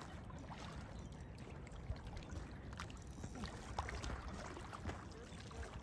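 Quiet outdoor background: a low, steady rumble with a few faint scattered ticks.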